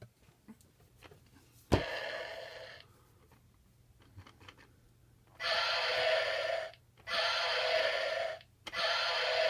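1993 Kenner Jurassic Park T-Rex toy playing its electronic roar through a small tinny speaker, set off by its button. A click and a short roar that fades about two seconds in, then three roars of about a second and a half each in quick succession from about five seconds in.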